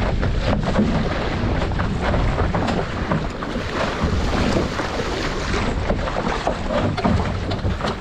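Wind buffeting the microphone over water rushing and slapping against the hull of an RS600 sailing dinghy under way, with a steady low rumble and frequent irregular splashes.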